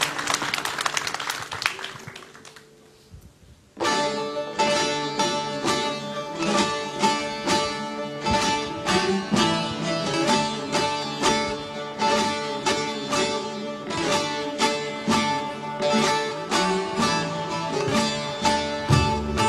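Audience applause dies away, and about four seconds in an ensemble of bağlamas (Turkish long-necked saz lutes) starts up together. They play a plucked instrumental introduction to a Turkish folk song, with quick repeated strokes.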